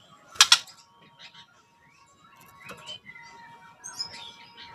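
White-rumped shama (murai batu) calling: a short, harsh burst about half a second in, then scattered short chirps and thin whistled notes.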